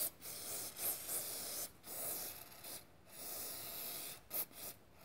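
Aerosol can of carburetor cleaner hissing in three spray bursts of about a second each, soaking the carbon-caked combustion chambers of a cylinder head to loosen the deposits.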